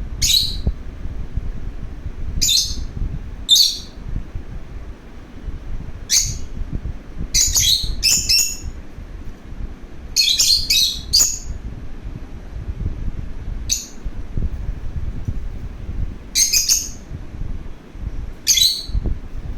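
A pet lovebird giving short, shrill chirps, singly and in quick clusters of two or three, about ten calls at irregular intervals, over a steady low rumble.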